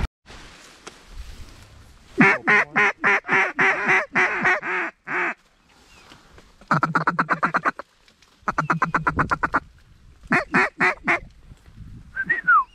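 Mallard duck call blown to draw in ducks: a series of about ten loud quacks, then two bursts of rapid feed chatter, then a few more quacks. Near the end comes a short whistle that slides down in pitch.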